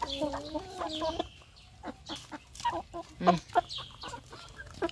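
Several hens clucking close by as they feed, with a drawn-out wavering call in the first second followed by short clucks and quick sharp taps.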